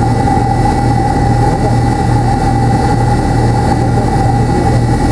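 Cabin noise of a McDonnell Douglas MD-83 with its tail-mounted Pratt & Whitney JT8D turbofans running at idle: a steady hum with a constant mid-pitched whine over a low wavering drone.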